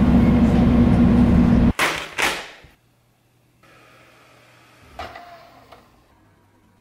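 Steady rumble and low hum of a rail car running, heard from inside, which cuts off suddenly after under two seconds. Two short rushing sounds follow, then a faint computer hum and a single clack about five seconds in as a Mac tower's optical drive tray opens.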